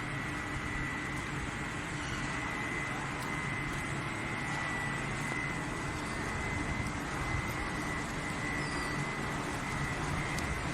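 Coal-fired steam boiler plant running: a steady machinery noise with a constant high whine over a lower hum.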